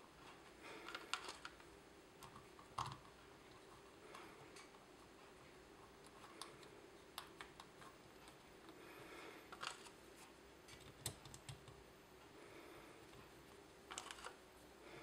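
Faint, scattered clicks and taps of small metal parts on a Briggs & Stratton carburetor being handled and fitted by hand, a spring and linkage being hooked on.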